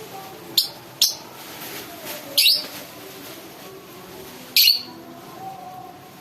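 Lovebird giving four short, sharp, high-pitched chirps, spaced irregularly.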